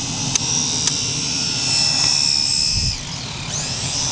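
Radio-controlled model airplane's motor and propeller running with a steady high-pitched whine. The pitch bends and wavers about three seconds in.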